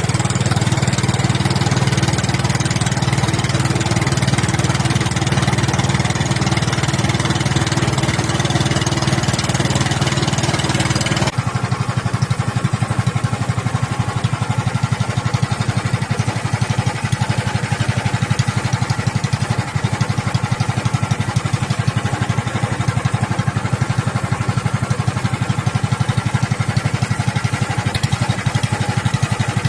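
Small engine running steadily; about eleven seconds in its note changes abruptly and it runs on lower and rougher.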